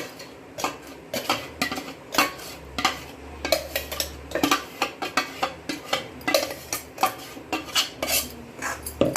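A metal spoon scraping and clinking against a kadhai as a thick turmeric and ground-spice paste is mixed in ghee, in quick strokes about twice a second.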